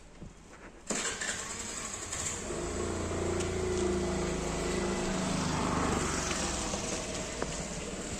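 A motor engine passing: a low engine hum that swells to its loudest in the middle and then fades, over a steady rushing noise that starts suddenly about a second in and cuts off abruptly at the end.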